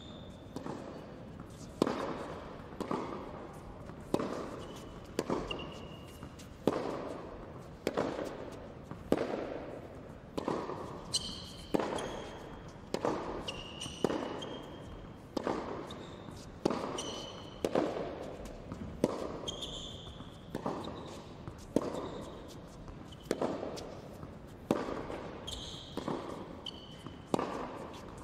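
A tennis rally on an indoor hard court: racket hits and ball bounces about once a second, each echoing in the hall, with short high squeaks of shoes on the court surface.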